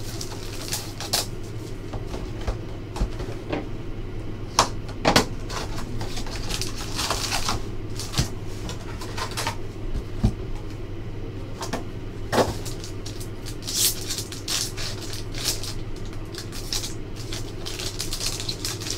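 Plastic shrink-wrap and foil trading-card packs crinkling and rustling as a hockey card box is unwrapped and its packs are handled, with irregular taps and knocks of cardboard over a steady low hum.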